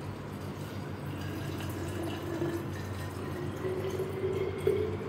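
Water poured from a stainless steel jug into a glass bottle, a steady splashing pour whose pitch slowly rises as the bottle fills.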